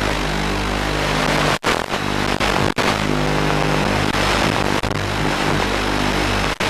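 Dubbed-in backing music with a dense, distorted sound over sustained low notes, cutting out abruptly for an instant about one and a half seconds in, again just before three seconds, and near the end.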